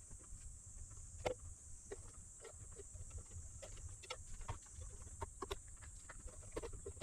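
Scattered light clicks and knocks of tools and parts being handled on a workbench, irregular and a few a second, over a faint steady high-pitched whine.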